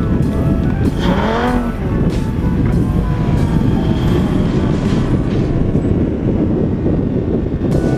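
Lamborghini running on a snowy track while towing an inner tube, heard through loud, steady wind rumble on a camera mounted outside the car. Background music plays over it, and about a second in a brief sound rises and falls in pitch.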